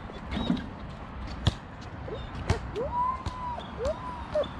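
A ball bouncing sharply on a hard court twice, about a second apart, with short squeaky calls that rise and fall in pitch through the second half.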